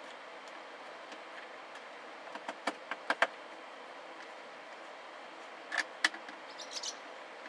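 Small sharp clicks and taps of hands and a screw working at a plastic speaker mounting in the cab's roof headliner: a quick run of about five clicks a few seconds in, then a few more near the end, over a steady low hiss.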